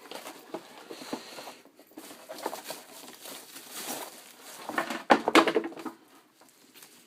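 Handling noises of unboxing: irregular taps, light knocks and rustling as packaging and a small plastic coffee machine are moved about, with a louder spell of rustling and knocking about five seconds in.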